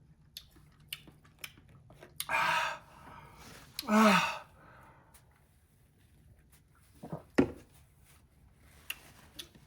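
A woman blowing out two hard breaths against the burn of very hot chicken, the second ending in a falling voiced "whoo". Small mouth clicks and smacks come between them, and there is a sharp knock about seven seconds in.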